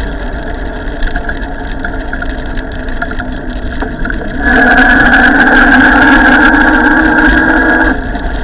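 Niubike electric power-assist motor on a road bike whining steadily, with wind rumble on the microphone. About halfway in the whine grows louder for a few seconds as the bike picks up speed, then drops back.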